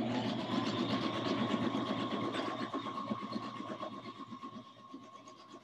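Brother LX2500 sewing machine running a straight stitch through paper: a fast, even run of needle strokes over a steady motor hum. It slows and grows quieter over the last couple of seconds.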